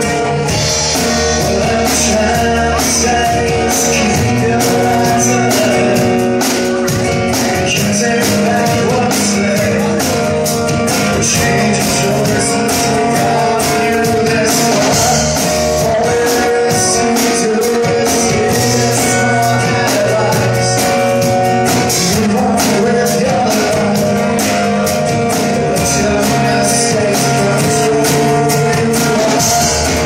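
Live acoustic rock band playing: a strummed acoustic guitar over a drum kit keeping a steady beat on the cymbals, with a lead part at the front microphone.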